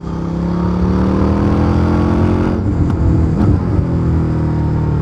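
2023 Indian FTR Sport's 1203 cc V-twin running through its stock exhaust under way, its pitch sinking slightly as the engine rolls off. Around halfway the note briefly breaks up, with two short clicks, then carries on steadily.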